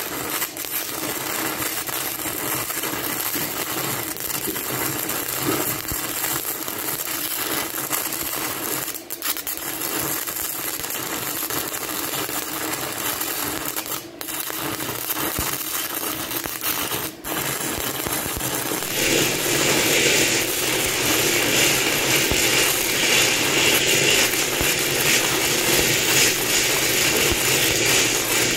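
Stick-welding (shielded metal arc) arc crackling and sputtering steadily as a bead is run, with a few brief drop-outs; it grows louder and hissier about two-thirds of the way in.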